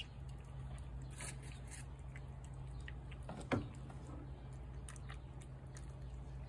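Feral tabby cat eating wet food from a plate: faint wet chewing and small clicks, over a steady low hum. One brief, louder sound comes a little past halfway.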